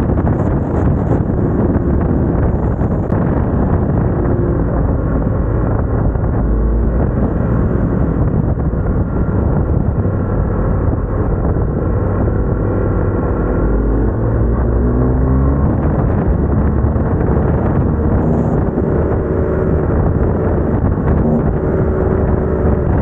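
BMW R1250GS Adventure's boxer-twin engine and exhaust running under way, the engine note rising and falling with the throttle, most plainly around the middle.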